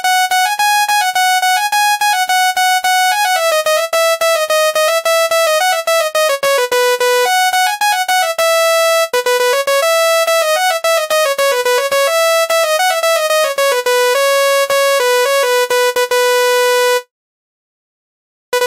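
Telolet basuri multi-tone bus horn playing a melody of quick stepping notes, each a steady tone with a click where the notes change. It cuts off suddenly shortly before the end and starts again after a brief silence.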